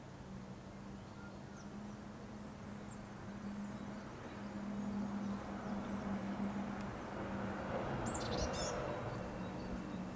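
Small propeller plane's engine humming steadily overhead, growing louder toward the middle, with a few short bird chirps about eight seconds in.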